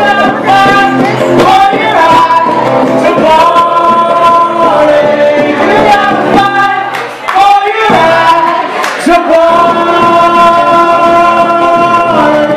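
Live acoustic duo mid-song: a woman and a man singing together over a strummed acoustic guitar, holding long notes.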